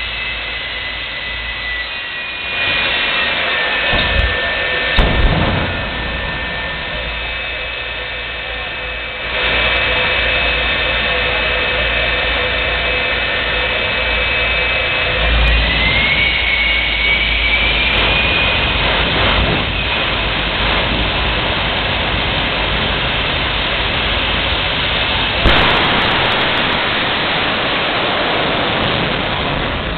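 Jet engines of a jet-powered semi truck running with a steady high turbine whine, spooling up in steps, with a couple of sharp bangs around 4 to 5 seconds in. About 25 seconds in, the sound jumps suddenly louder as the truck goes to full power and launches down the drag strip.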